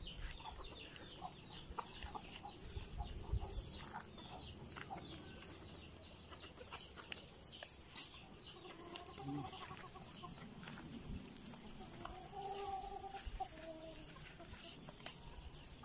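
Hens clucking faintly, with a run of longer clucks about nine seconds in and again a few seconds before the end. Light taps and rustling come from a bamboo pole working among the tree's branches.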